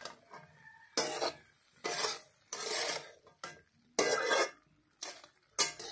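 A steel spatula scraping and stirring steamed yardlong beans and koinar flowers in a metal kadhai, mixing them together. There are about seven short scraping strokes, roughly one a second.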